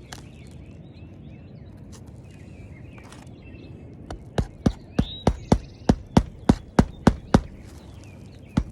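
Hammer driving roofing nails into asphalt shingles: a quick, steady run of about a dozen blows, roughly three a second, starting about halfway through, then a short pause and another blow near the end.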